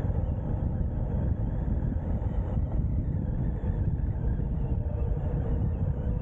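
Wind buffeting the microphone and tyre noise on the road while an Ariel Rider X-Class 52V electric bike rides at speed, with a faint steady whine.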